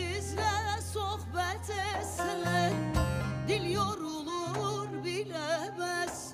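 Background music: a song with a solo voice singing with heavy vibrato over held low accompaniment notes.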